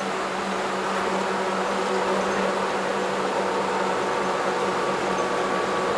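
Interior noise of a city bus under way: a steady engine and drivetrain hum with a few constant tones over an even rush of road noise, heard from inside the passenger cabin.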